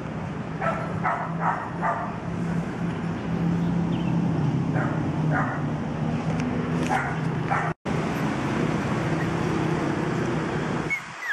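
Toy poodle puppies yipping in short, high little barks: a run of four about a second in, then a few more, over a steady low hum. The sound cuts out for an instant a little before eight seconds in.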